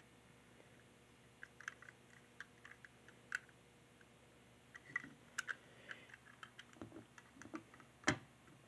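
Light plastic clicks and taps as a plastic toy train coach is handled and turned over in the hand, then a sharper knock near the end as it is set down on a table.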